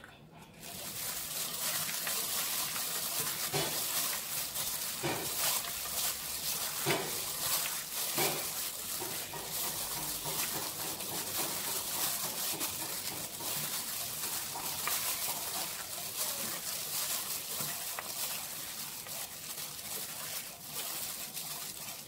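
Plastic-gloved hand tossing and squeezing a Thai salad of shredded vegetables, peanuts and pickled pork in an aluminium pot: steady wet rustling and crinkling, with a few sharper clicks in the first half.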